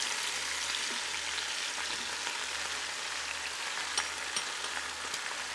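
Beef ribs searing in hot oil in a Ninja Foodi pot: a steady sizzle as sliced mushrooms go in. A few light clicks about four seconds in, as a spatula scrapes the mushrooms out of a glass bowl.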